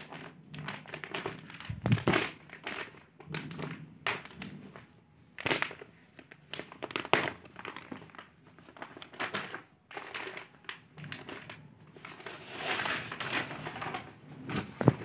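A folded cotton-silk suit and its plastic wrapping handled and unfolded by hand: irregular rustling and crinkling of cloth and plastic, with occasional soft brushes and knocks.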